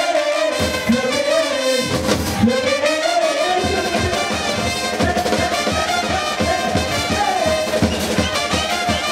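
A street brass band plays a lively tune, with trumpet and saxophones carrying the melody. A bass drum beats sparsely at first and settles into a steady beat about two and a half seconds in.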